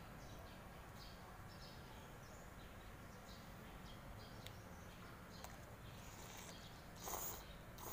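Quiet room noise with scattered faint, short high chirps, then about seven seconds in a brief, louder slurp as a mouthful of instant noodles is sucked in.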